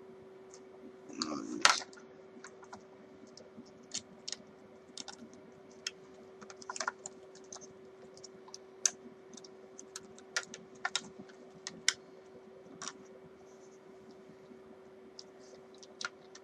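Irregular light clicks and taps of small guitar parts and tools being handled during assembly, with a louder clatter about a second and a half in. A faint steady hum runs underneath.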